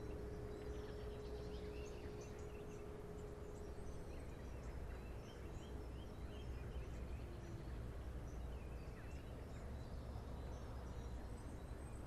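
Distant German E57 motor sirens sounding the fire-alarm signal. A steady siren tone fades away in the first half, leaving songbirds chirping over a low rumble in the pause between blasts, and the siren tone comes back just at the end.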